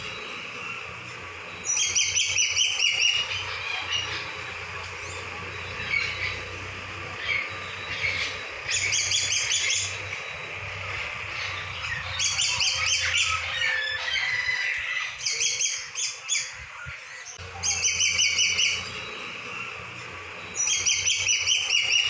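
Birds calling: a loud burst of quick repeated high notes comes every few seconds, six times, with fainter scattered chirps in between.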